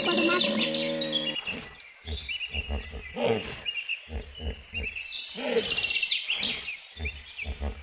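Hippopotamus sound effect: several runs of deep, rapid, pulsing honks, with birds chirping throughout. A steady pitched sound fills the first second and a half.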